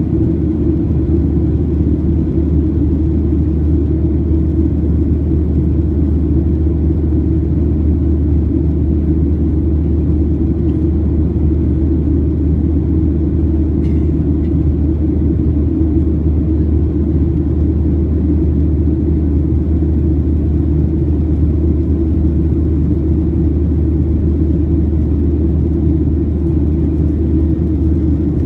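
Steady low drone of a Boeing 737-700 in flight, heard from inside the cabin: its CFM56 turbofan engines and the rush of air over the fuselage.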